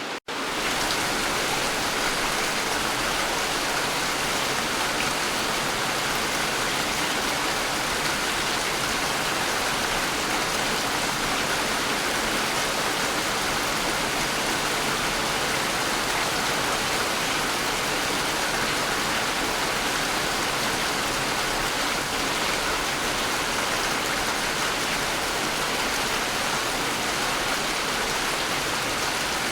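Steady, even rainfall, a continuous hiss of many drops with no single drops standing out. The sound cuts out for a split second right at the start, where two recordings are joined.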